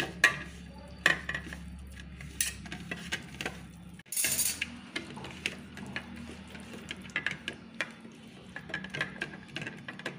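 Fingers mixing a wet spice paste in a stainless steel plate, with repeated scrapes and light clicks on the metal. There is a louder scraping rush about four seconds in.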